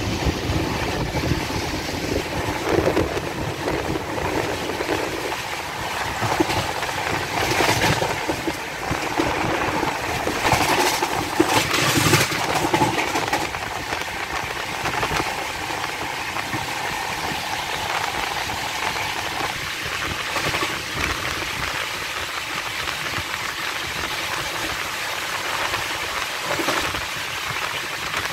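Rajdhani Express train running at high speed, heard from inside a coach by the window: a steady rumble and rush of wheels on rails and passing air. It grows louder for a few seconds around the middle.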